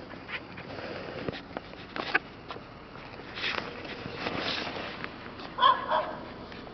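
Dogs moving about and sniffing, with scattered light clicks and short noisy breaths. About five and a half seconds in comes a short pitched yip or whine from a dog, in two quick pulses, the loudest sound here.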